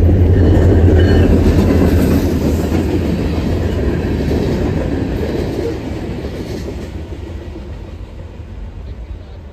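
CSX freight train rolling past, its hoppers and boxcars clattering over the rail, with a steady low rumble underneath. The sound is loudest about a second in and fades steadily as the train moves away.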